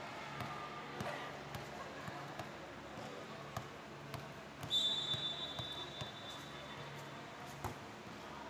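Referee's whistle, one high blast a little past halfway that fades out after about a second, signalling the serve. Before it the volleyball thuds several times on the court floor, with faint voices in the hall.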